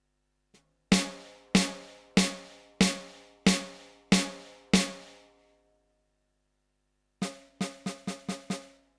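Roland TD-12 electronic drum kit's snare sound, triggered from a mesh pad: seven evenly spaced strong hits, then after a pause a quicker run of about six softer hits. A test of the snare with a good pad swapped in for the faulty one, the snare sound coming out correct.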